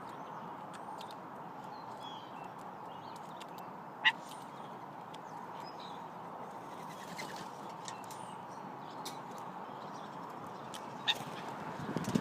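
Wild birds at a window feeding spot: faint, scattered chirps over a steady background hiss, with a sharp tap about four seconds in and another near the end.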